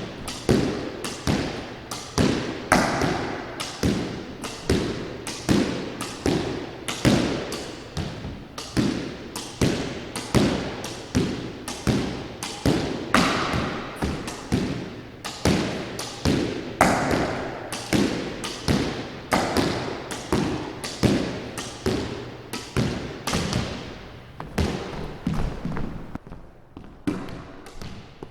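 Squash ball being struck by a racket and rebounding off the court wall in a steady solo rally, about two hits a second, each impact echoing in the enclosed court.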